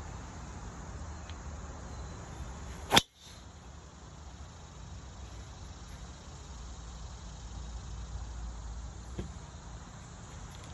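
A golf driver striking a teed-up ball: one sharp, loud crack about three seconds in. A small click follows near the end.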